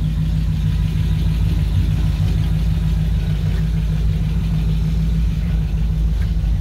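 1940 Ford's flathead V8 idling steadily at a low, even pitch through new Fenton exhaust manifolds and dual mufflers.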